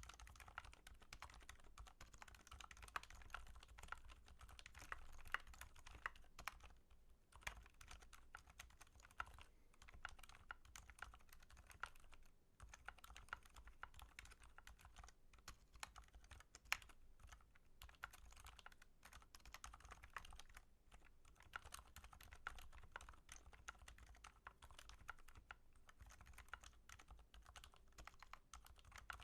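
Steady, fast typing on a computer keyboard, a dense run of faint key clicks with a couple of brief pauses.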